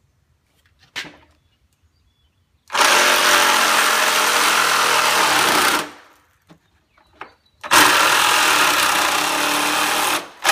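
Reciprocating saw cutting through a metal bar in two runs of about three seconds each, winding down and stopping in between. A single click about a second in.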